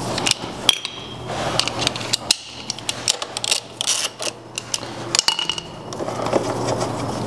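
Metal clinks, clicks and taps of hand tools and parts being worked at a motorcycle's front brake caliper and disc: an uneven run of short sharp knocks.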